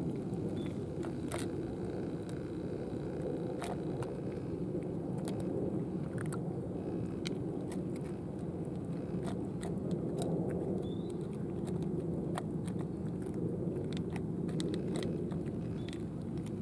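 Cats eating wet cat food from plastic trays: scattered, irregular wet chewing clicks and smacks, over a steady low background rumble.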